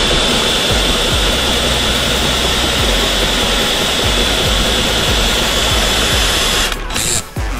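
Compressed air hissing steadily from a handheld air gun, with a thin high whistle. It cuts off near the end and is followed by one short blast.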